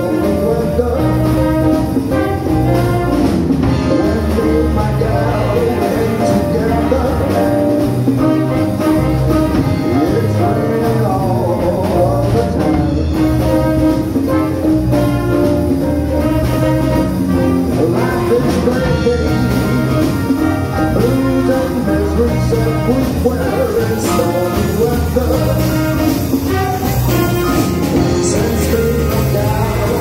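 Live jazz big band combo playing a standard: saxophones, trumpet and trombone over drums, guitar and keyboard.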